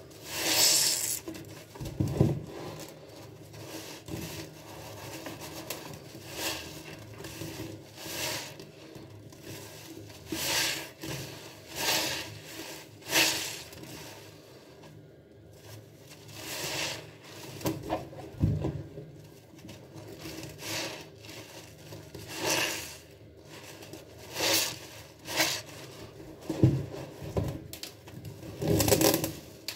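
Soapy sponges loaded with a recycled cleaner mix of Comet powder, glitter, paint and seed beads, squeezed and wrung by hand. A loud wet squishing comes in irregular squeezes every second or two, with a few heavier low squelches.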